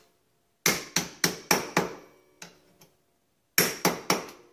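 Hammer tapping a long steel punch against the rear drum-brake assembly of a Yamaha Bruin 350 ATV: metal-on-metal strikes with a short ring. There is a quick run of about five blows, a pause with a couple of light knocks, then about four more near the end.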